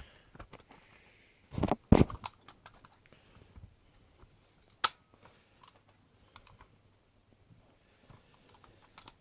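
Clicks and knocks of a full-metal spring airsoft pistol being worked with a flathead screwdriver to pry the slide open. A cluster of loud knocks comes about two seconds in, and a single sharp click near the middle.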